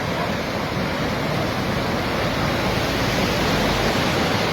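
Floodwater rushing in a strong current: a loud, steady roar of moving water.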